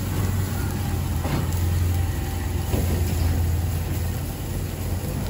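Steady low hum of an engine idling.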